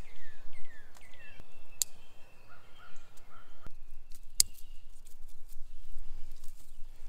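Birds calling, with short falling chirps in the first second or so, and a couple of sharp snips of scissors cutting fava bean pods from their thick stems, about two and four and a half seconds in.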